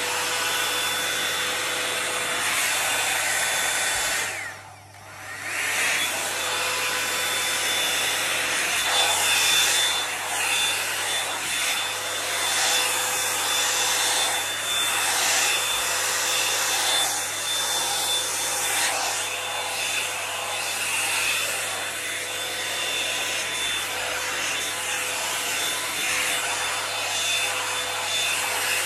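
Toni & Guy hot-air volumiser brush running: a steady rush of blown air with a thin high whine over it. It drops out briefly about five seconds in, then runs again, wavering slightly as it is drawn through the hair.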